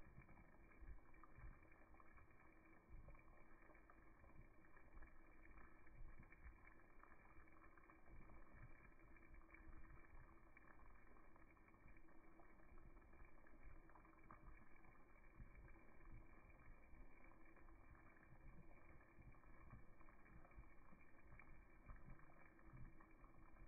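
Faint, steady bubbling of chicken in tomato sauce boiling in a stainless steel saucepan.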